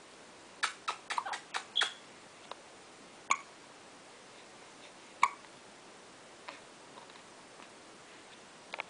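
Newborn baby making short sharp little mouth and throat sounds: a quick run of squeaks and clicks about a second in, then two single sharp sounds about two seconds apart, and a few faint ones near the end.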